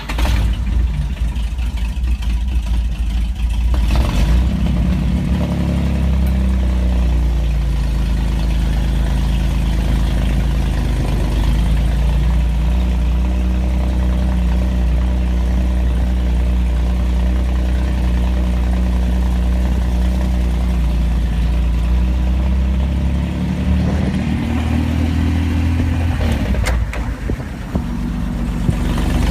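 Vintage car engine running rough after a sputtering start. It is revved up and let back down early on, then idles steadily. Near the end it is revved again and drops back abruptly with a brief stumble.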